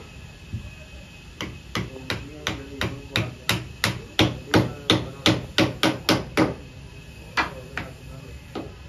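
Hand hammer striking metal at a saw bench being refitted: a quick run of about fifteen ringing blows, roughly three a second, a pause, then two more near the end.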